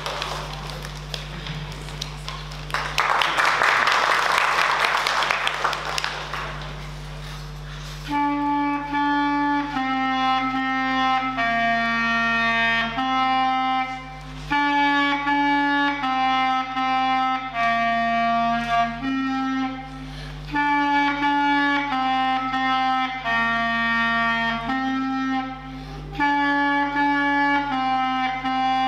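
Applause fades out over the first several seconds. Then a solo clarinet starts a melody about eight seconds in, played in short phrases with brief pauses between them.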